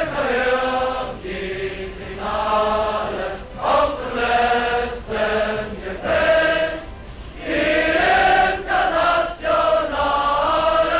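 A large crowd singing a song together in unison, in held notes broken into short phrases.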